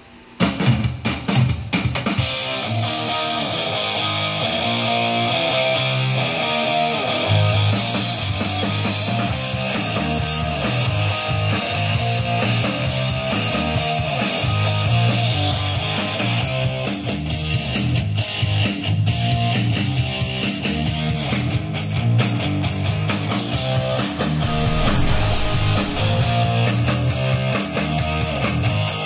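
Rock song with drum kit, bass and guitar playing on an AWEI Y669 portable Bluetooth speaker, starting abruptly about half a second in.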